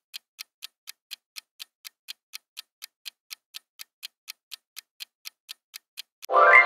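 Quiz countdown-timer sound effect ticking steadily, about four ticks a second. Near the end the ticking gives way to a loud, bright chime that rings on and fades as the time runs out.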